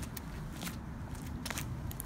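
Low rumble of a handheld camera being moved, with four short crunching clicks spread through it.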